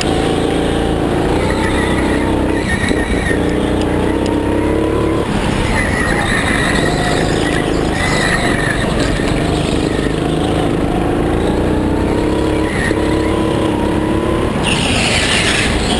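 Go-kart engine running hard, its pitch climbing steadily as the kart accelerates and falling off sharply when the driver lifts, twice. Near the end the tyres skid briefly on the slippery track.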